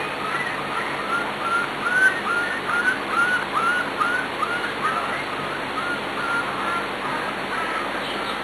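Three-week-old Pembroke Welsh corgi puppy whining: a steady string of short, high, squeaky cries, about three a second, growing weaker near the end.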